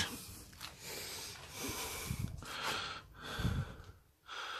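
A person's breathing close to the microphone: several noisy breaths in and out through the nose, with a couple of low thumps about halfway through and near the end.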